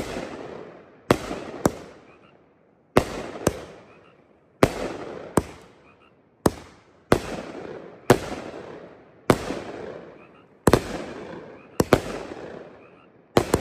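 A 500-gram consumer firework cake, the Piranha, firing shot after shot of aerial bursts. Sharp bangs come in close pairs about every one and a half seconds, each trailing off before the next.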